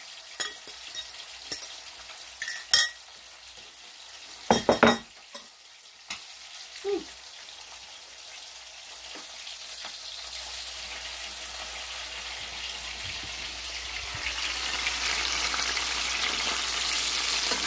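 Chicken breast filets frying in very hot oil in a stainless steel skillet: a steady sizzle that grows louder through the second half. A few sharp clinks sound in the first five seconds.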